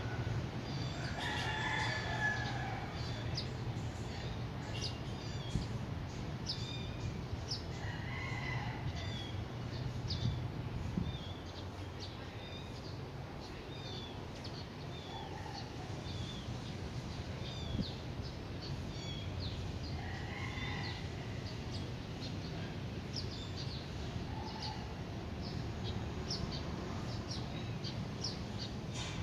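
A rooster crowing three times, with small birds chirping all through over a steady low hum.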